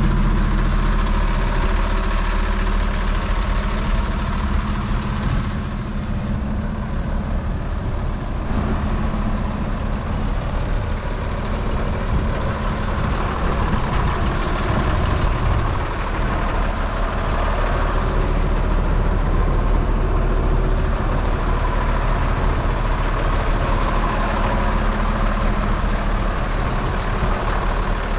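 Mercedes-Benz 1829 tanker truck's diesel engine idling steadily.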